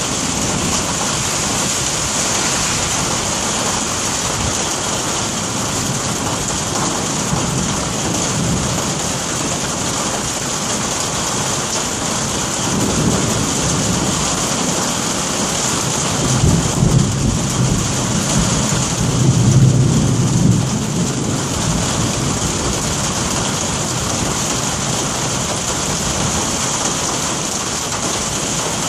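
Steady rain hissing throughout, with low rolling thunder rumbling in several swells through the middle, loudest about two-thirds of the way in.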